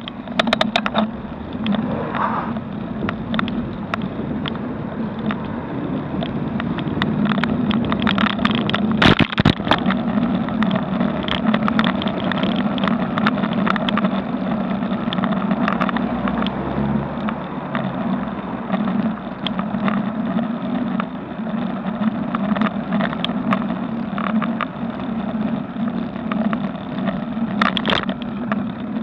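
Noise of a slow road ride picked up by a vehicle-mounted action camera: a steady low hum under frequent rattling clicks, with a sharper knock about a third of the way in.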